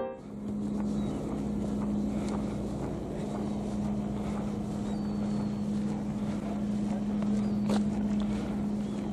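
An engine running steadily with a constant low hum, under wind noise on the microphone. A brief sharp tick comes near the end.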